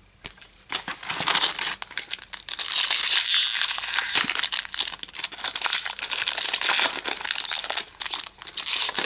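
A trading card pack's wrapper being torn open and crumpled, a dense run of crinkling and crackling that starts about a second in and keeps going.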